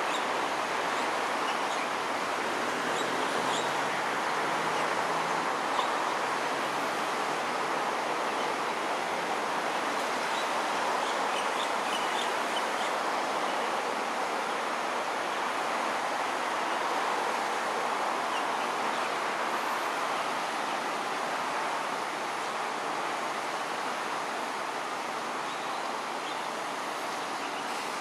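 Steady outdoor background noise, an even rushing hiss, with a few faint, short high chirps scattered through it.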